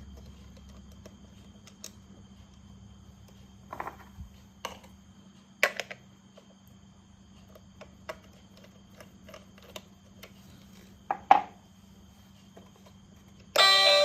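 Scattered short clicks and knocks of small plastic toy parts being handled, over a low steady hum. A music tune starts near the end.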